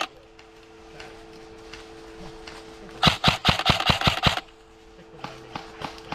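Airsoft gun firing a rapid string of about eight shots, about six a second, followed by a few fainter single shots.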